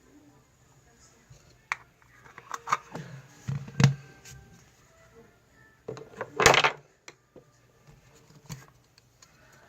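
Melted slime being worked by hand, giving scattered sticky clicks and squelches, with two louder bursts about four seconds and six and a half seconds in.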